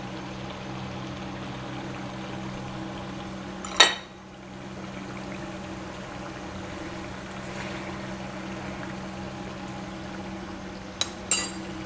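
Mutton karahi gravy simmering and sizzling in a kadai over a full flame, with a steady low hum underneath. A sharp knock about four seconds in and two quick knocks near the end.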